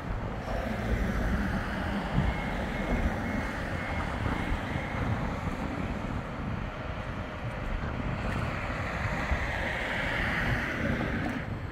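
Wind buffeting the microphone over the steady running sound of a Bombardier Flexity 2 tram.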